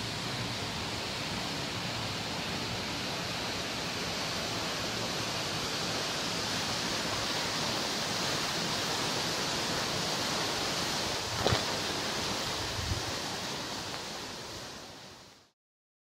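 Waterfall pouring into a rock pool: a steady rush of falling water, with a brief knock about three-quarters of the way through, fading out near the end.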